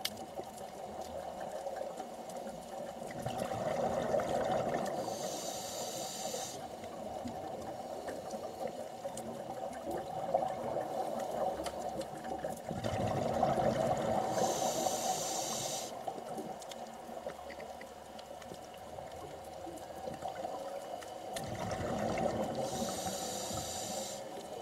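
Scuba regulator breathing heard underwater: three slow breath cycles about eight seconds apart, each a swelling rush of bubbles and a brief hiss, over a steady background hum.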